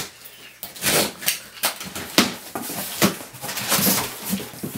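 Cardboard packaging box being handled, giving a series of irregular knocks and scrapes.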